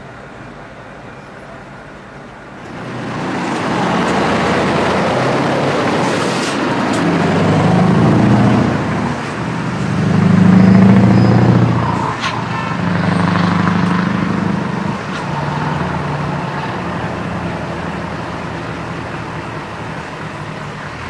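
Scania V8 truck engine with an open exhaust pipe pulling away under load, its note rising through the revs and dropping several times at the gear changes. It comes in loud about three seconds in, is loudest near the middle, and eases off toward the end.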